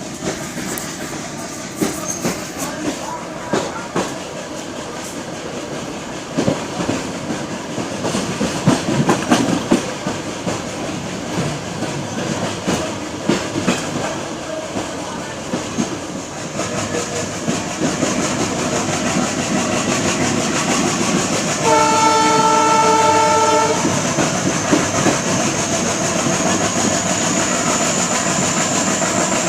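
Express passenger train running along the track, its wheels clattering over rail joints in an uneven clickety-clack over a steady running rumble. Partway through the train horn sounds once for about two seconds, and near the end a thin high whine slowly rises.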